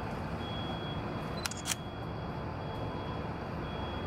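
A still camera's shutter fires once, a quick double click about a second and a half in, taking a time-lapse frame over a steady low rumble.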